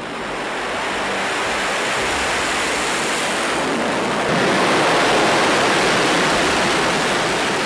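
Rocket engine noise from the KSLV-II Nuri's four KRE-075 liquid-oxygen/kerosene first-stage engines at liftoff: a loud, dense rushing noise with no distinct tones. It builds over the first second, is loudest a little past the middle, and eases off near the end.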